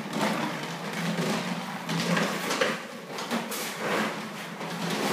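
Plastic wheels of a toddler's ride-on toy motorbike rolling and scraping over a hard floor, a rough rattle coming in uneven surges as the child pushes along.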